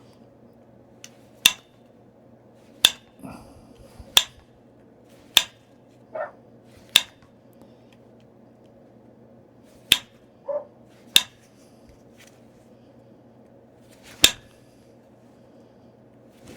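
Flintknapping: about nine sharp clicks at uneven intervals as flakes snap off the edge of a stone point being thinned.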